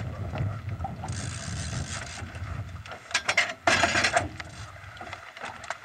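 Spinning fishing reel clicking as a hooked fish is played on the rod, over a low rumble. A short, louder rush of noise comes a little after halfway through.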